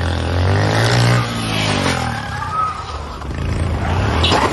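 Motorcycle engine revving, its pitch climbing about a second in and falling back, then running on steadily. A sharp knock comes near the end.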